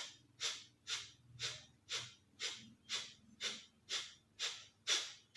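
Rapid, forceful exhalations through one nostril, the other held shut by the thumb: a steady train of short sharp puffs about two a second, as in the Virechan Gati yogic cleansing breath.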